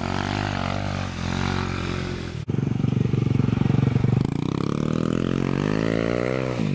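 Small single-cylinder mini-motorcycle engines revving up and down while riding, with a sudden cut about two and a half seconds in. After the cut one engine's note climbs steadily under throttle, then drops near the end.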